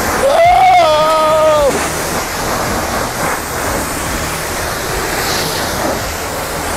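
Pressure-washer wand spraying water against plastic wheelie bins: a steady hissing spray. Near the start a man's voice calls out a drawn-out "oh" for about a second and a half over the spray.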